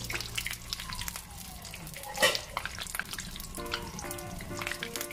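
Battered Nendran banana fritters deep-frying in hot oil, a continuous sizzle and crackle with one much louder sharp crack about two seconds in.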